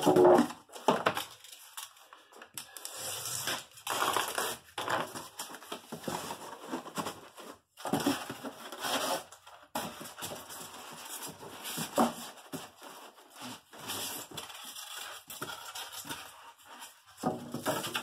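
Styrofoam packing blocks squeaking, crunching and knocking against a cardboard box as they are pushed into place by hand, in irregular bursts, the loudest right at the start.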